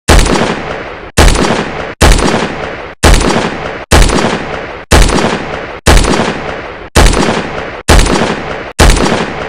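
Gunshot sound effect fired ten times at about one shot a second, each a sharp bang with a long fading echo that is cut off abruptly by the next shot.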